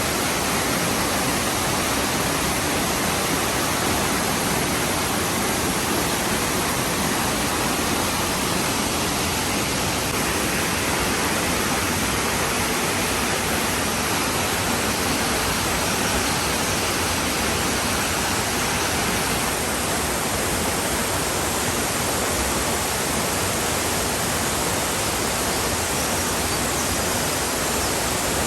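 Waterfall pouring: a steady, even rush of falling water with no breaks or changes.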